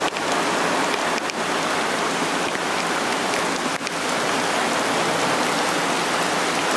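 Heavy rain falling steadily, a dense, even hiss, with a couple of faint taps about a second in and near the middle.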